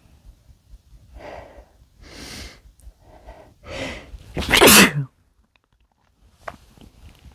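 A man sneezing: several catching breaths build up over about three seconds, then one loud sneeze comes about four and a half seconds in, its voice falling in pitch as it ends.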